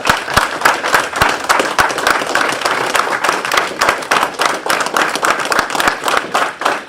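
Applause: a small audience clapping loudly and steadily, starting abruptly and tapering off at the end.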